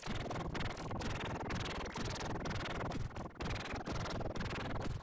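Crackly, static-like noise of digitally distorted audio, steady in level, broken by brief dropouts several times.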